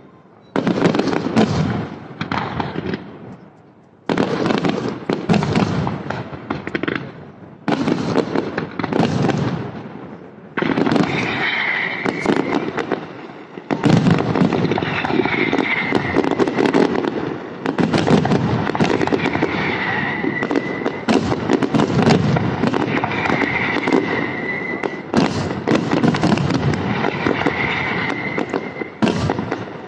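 Aerial firework shells bursting in rapid succession, each bang trailing off in a rumbling echo. They come in separate volleys at first, then merge into a near-continuous barrage from about halfway, with a high wavering tone recurring every few seconds.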